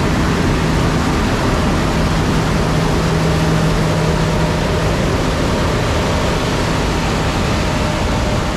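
Harvest machinery running: a steady, loud rush of noise over a low engine hum that fades about five seconds in.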